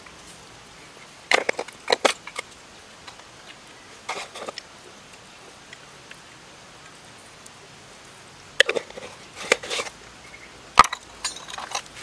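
Scattered sharp clicks and crackles in a few short clusters, with one loud click near the end, from seasoning bottles and jars being handled and shaken over a stainless steel pot.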